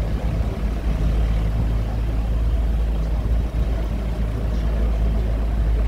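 Tourist tram's engine running with a steady low rumble while the tram moves along a street.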